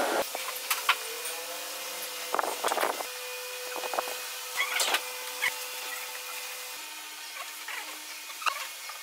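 Small wooden pieces being handled and pressed into place in a wood inlay panel: scattered light wooden clicks and a few brief scrapes, over a faint steady hum.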